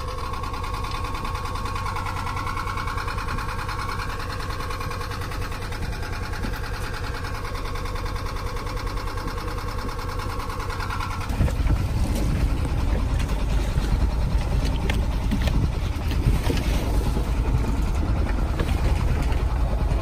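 Sailboat's engine running steadily with a constant hum. About eleven seconds in it gives way to louder low wind rumble buffeting the microphone out on deck in rough weather.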